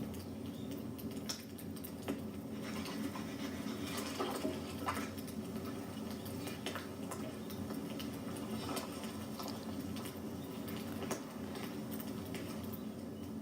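Wood fire crackling quietly, with scattered small pops and ticks over a low steady rush.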